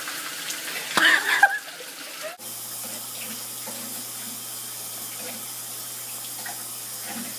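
Tap water running in a bathroom, a steady rush with a short loud burst about a second in; the sound changes abruptly about two and a half seconds in and the even rush of water carries on.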